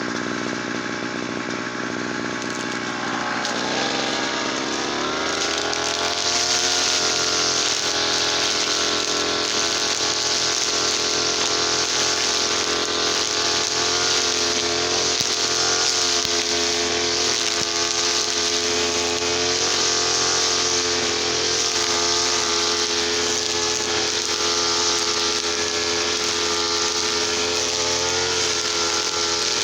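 Small TL33 two-stroke petrol engine running. Its pitch rises about four seconds in as it speeds up, then holds steady at high speed.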